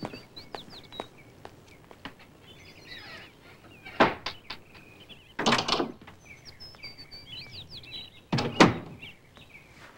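Small birds chirping and twittering in the background, broken by sharp knocks: one about four seconds in, a double knock around five and a half seconds, and another near eight and a half seconds.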